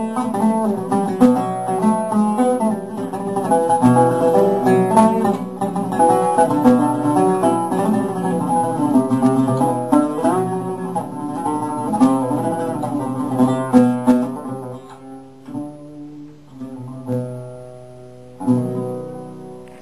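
Solo oud taqsim, an improvisation in maqam Hijaz Kar Kurd: quick runs of plucked notes. After about fifteen seconds it thins to a few spaced notes, with a last strongly struck note near the end that rings away.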